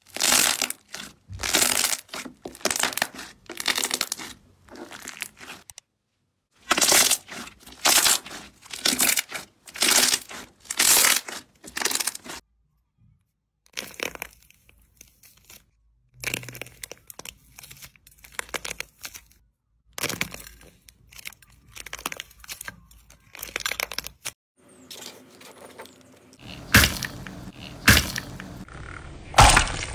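Slime being squeezed and pressed by hand, giving repeated crackling, tearing pops about one to two a second. The pops come in several separate takes with short silent gaps between, and the last take is the loudest.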